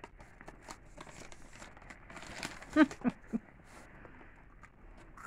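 A puppy tugging and shaking a braided rope toy: scattered rustling, scuffing and small clicks of rope and fabric. Near the middle come three short voiced sounds in quick succession, the first by far the loudest.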